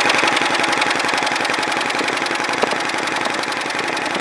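Electric starter cranking a 1993 Sea-Doo GTS's Rotax 587 two-stroke twin over for a compression test on the PTO-side cylinder. It makes a loud, fast, even chuffing as the cylinder builds to 149 PSI, a good, even cold compression.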